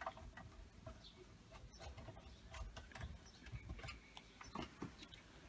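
Faint, scattered clicks and light knocks from hands handling screws and the sheet-metal chassis of an opened all-in-one desktop computer.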